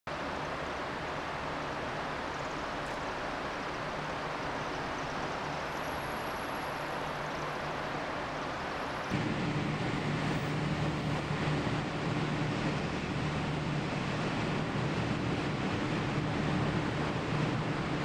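Steady outdoor city ambience with a constant rush of distant traffic. About nine seconds in, the sound steps up and a steady low hum joins it.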